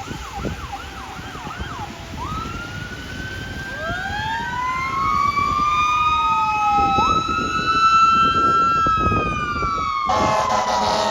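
Fire engine's siren going by: a fast yelp in the first second or two, then slow wails rising and falling in pitch and overlapping. About ten seconds in, the truck's air horn starts a long, steady blast over the siren.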